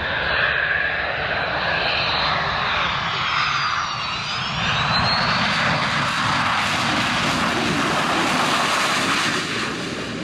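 Saab 37 Viggen's Volvo RM8 turbofan jet engine at close range, a loud steady jet rush as the fighter comes in low and then rolls out on the runway. About four seconds in a whine sweeps down and back up, and from then on the rush is brighter and hissier, with reverse thrust on the landing roll blowing up dust.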